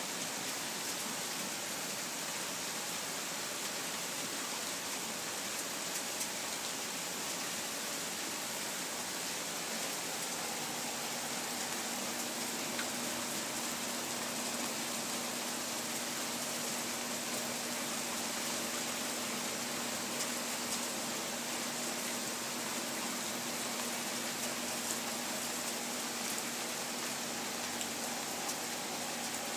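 Steady rain falling on pavement and trees: an even hiss with faint ticks of drops. A faint steady low hum comes in about ten seconds in.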